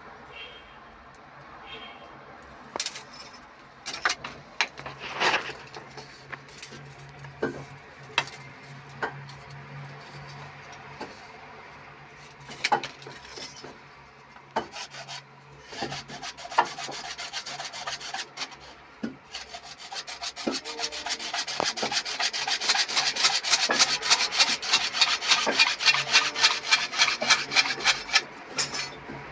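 Scattered knocks and clicks of repair work, then for the last several seconds a fast, regular back-and-forth rasping, several strokes a second and growing louder, like a file or hand saw working hard material.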